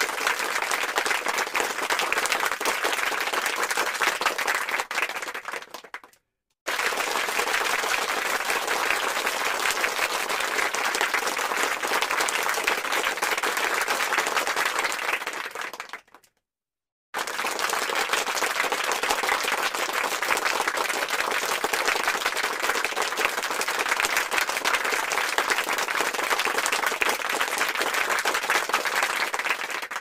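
Large crowd applauding with dense, steady clapping, in three separate takes that each fade out, with a brief silence between them about six seconds in and again about sixteen seconds in.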